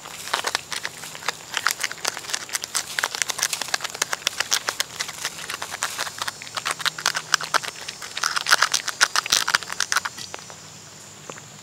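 Cat eating flaked canned tuna from a bowl: a rapid run of wet chewing and smacking clicks that stops about ten seconds in.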